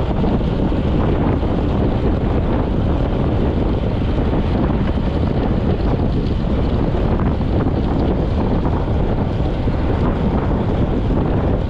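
Steady, heavy wind rumble on the microphone of a road bike moving at about 36 km/h.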